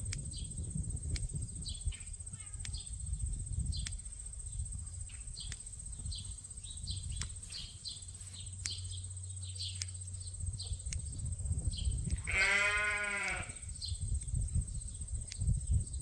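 Scissors snipping a sheep's wool in short irregular crisp snips, about one or two a second, as a ram's legs and hindquarters are trimmed by hand. About twelve seconds in a sheep bleats once, for about a second.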